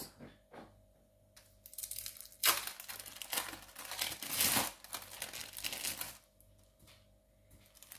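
Thin plastic film crinkling as it is peeled off individually wrapped processed cheese slices, in irregular spells of rustling that are loudest about two and a half and four and a half seconds in.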